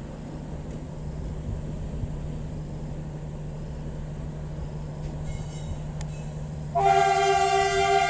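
D20E diesel locomotive's engine running with a steady low hum. Near the end a locomotive air horn blows loud and held, several tones sounding together.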